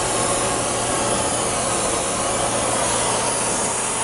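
Brazing torch flame running with a steady, even hiss, heating a knife tang to braze a threaded rod onto it, with a low steady hum underneath.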